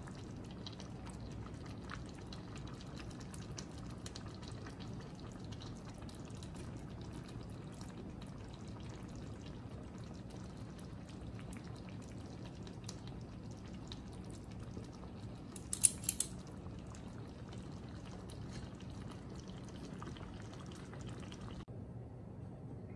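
Spaghetti in thick tomato meat sauce simmering in a pot, bubbling and popping softly and steadily. About 16 seconds in, a brief cluster of sharp clicks, like a utensil knocking the pot.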